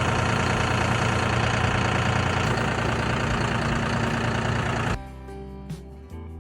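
Portable band sawmill's engine running steadily, cut off abruptly about five seconds in and replaced by background music with a beat.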